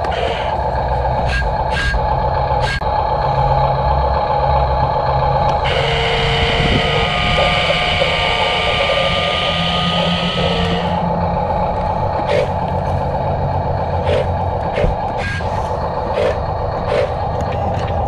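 Huina RC dump truck tipping its bed. From about six seconds in, its small electric lift motor and gears whine for about five seconds while the bed rises and the dirt slides out. Underneath runs a steady hum with short repeated beeps.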